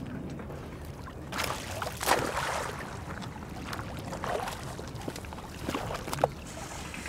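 Water splashing and sloshing in irregular swishes, with a few sharper splashes, over a steady low rumble.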